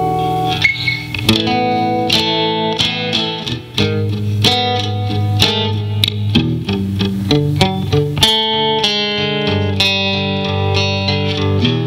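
Handmade four-string cigar box guitar played with a pick: a run of plucked notes and chords, each ringing on as the next is struck, the notes changing every half second or so.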